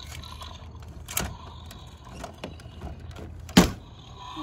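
Plastic Imaginext toys being handled: scattered clicks and knocks of hard plastic, the loudest a sharp knock near the end, over a low steady hum.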